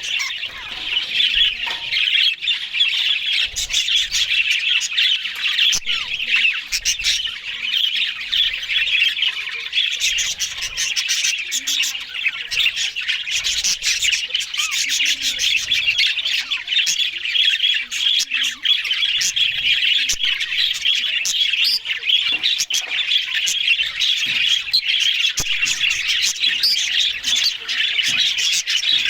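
A flock of budgerigars chattering without pause, a dense warbling chorus of chirps and squawks with many short sharp clicks mixed in.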